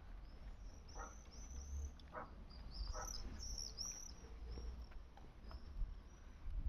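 Wild boar eating watermelon, with short chewing sounds about once a second, over a background of small high-pitched chirps.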